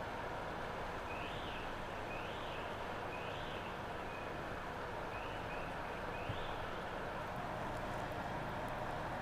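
Steady rushing of the flooded Passaic River. Over it come six short high chirps, each rising then falling, about one a second from a second in until past the middle.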